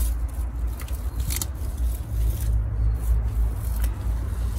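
Salad greens rustling as they are handled in a plastic colander, with a few light scrapes and clicks, over a steady low rumble on the microphone.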